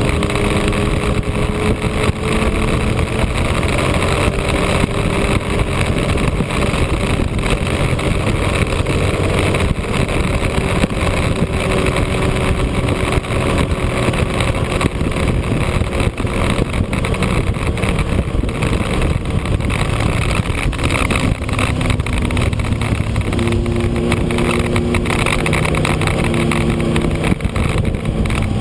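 Motorcycle engine running at road speed under heavy wind rush on the microphone; the engine's pitch shifts in steps a few times in the second half.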